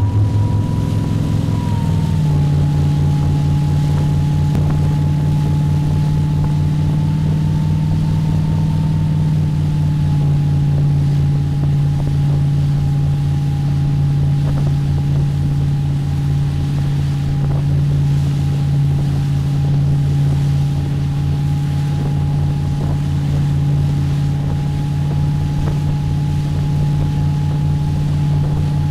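Motorboat engine running steadily at towing speed, its note dropping slightly about two seconds in, with wind and rushing wake water.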